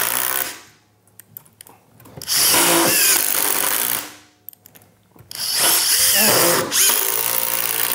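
A DeWalt 20V and a Makita 40V XGT cordless impact driver hammering screws into wood side by side, in three bursts: one ending about half a second in, one from about two to four seconds in, and a longer one starting about five seconds in.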